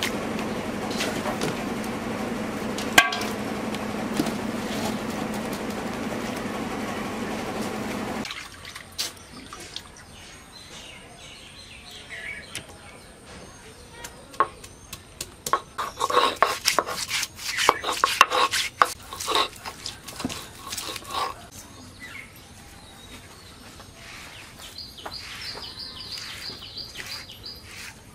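Raw goat meat and fat being mixed in a steel bowl, a steady wet squelching and rustling that stops abruptly. Then peeled garlic is crushed and ground by hand on a ridged wooden board, with irregular knocking and scraping strokes that bunch together in the middle. A small bird chirps briefly near the end.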